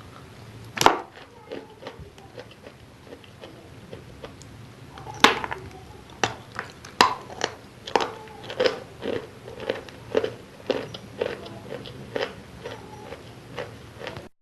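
Someone biting into and chewing wet chalk close to the microphone. There is a sharp crunching bite about a second in and a louder one about five seconds in, then steady chewing crunches about twice a second.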